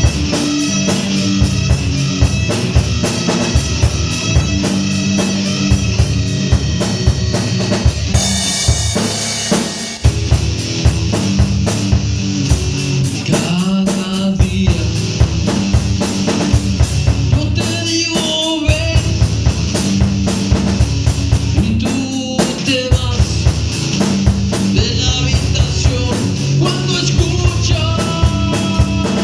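Heavy metal song with a drum kit hammering out a fast, even beat under guitar and bass. A short break comes about a third of the way in.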